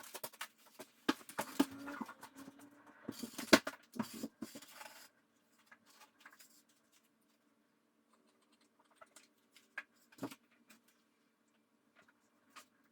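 Scattered clicks, taps and rustles of tools and materials being handled, busiest in the first five seconds with a sharp knock about three and a half seconds in. After that it is mostly quiet, with a faint steady hum and an occasional tap.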